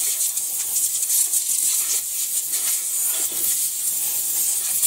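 A steady high hiss, with rustling and light handling noises from a bundle of electrical cords being gathered and strapped by hand.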